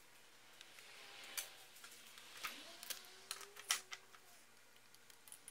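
Light clicks and taps of small parts being handled inside an opened laptop: metal tweezers on the motherboard, then the cooling fan being set into the chassis, with a dozen or so sharp clicks, the loudest a little past the middle.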